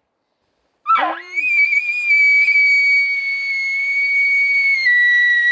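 Elk bugle: a low start sweeping up into a long, high, steady whistle that steps down slightly near the end.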